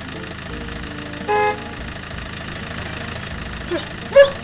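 A cartoon vehicle horn gives one short toot about a second in, over a steady low background. Near the end comes a brief, loud cartoon voice cry.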